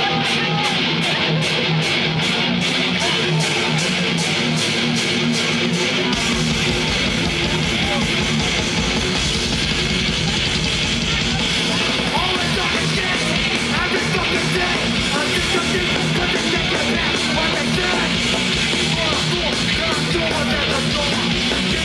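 Hardcore punk band playing live, an instrumental stretch of distorted electric guitar riffing over fast drums; the bass and kick come in heavily about six seconds in.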